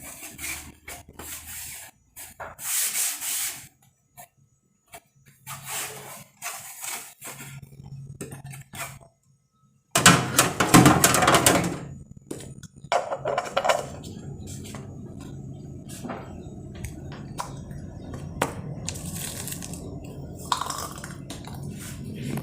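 Household items and containers being handled with short clattering and rubbing sounds, then a loud splashing burst about ten seconds in, followed by a steady rush like a running tap.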